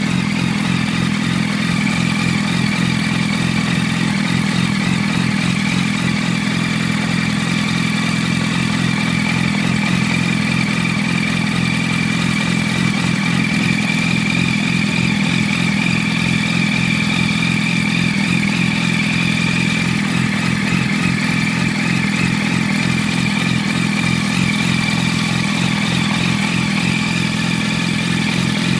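2006 Yamaha R1's inline-four engine idling steadily through a full titanium aftermarket exhaust, with a steady high whine alongside.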